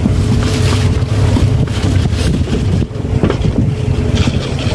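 Motorboat engine running steadily as a low hum, with wind buffeting the microphone.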